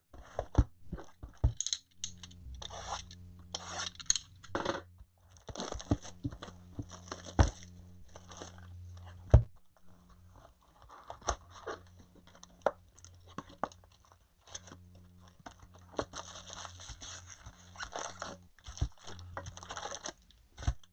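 Plastic wrap being torn off a Topps Chrome hobby box and the foil card packs handled and pulled out. Tearing and crinkling, with scattered sharp knocks and clicks throughout.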